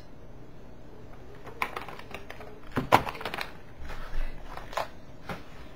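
Handling of small items, likely the cosmetics prize packages and a purse: a few light clicks and knocks with some rustling, the loudest knock about three seconds in.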